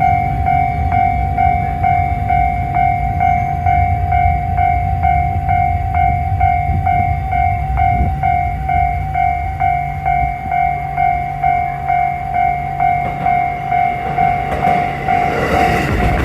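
Japanese railway level-crossing alarm bell ringing steadily, a repeating two-tone ding at about two rings a second, over a low rumble. Near the end the noise of an approaching train starts to build.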